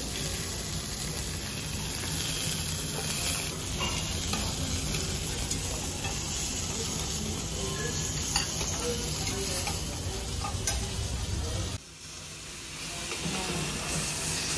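Slices of hanwoo beef sizzling on a hot round iron grill pan, a steady frying hiss with a few light clicks. About twelve seconds in the sound drops away sharply, then builds again.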